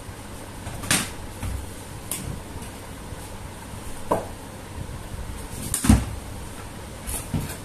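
About five short, scattered knocks and thumps in a small room, the loudest about six seconds in.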